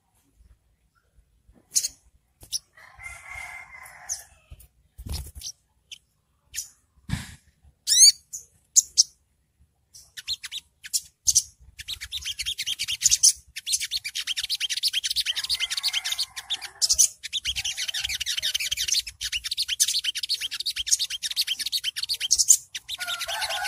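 Olive-backed sunbird singing: scattered sharp, high chips and a few quick sweeps at first, then from about halfway through a continuous fast, high chattering trill, the 'ngriwik' song.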